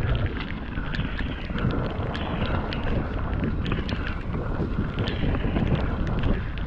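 Wind rushing over the microphone and tyres rolling on a wet, rocky trail as a mountain bike rides along, with frequent sharp clicks and rattles from the bike over the ground.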